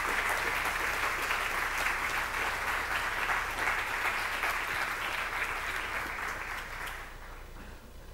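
Audience applauding, dying away about a second before the end.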